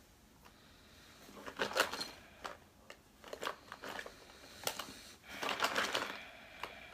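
Rummaging through a small makeup bag: scattered clicks and rustling of cosmetics being moved about, busiest about five and a half seconds in.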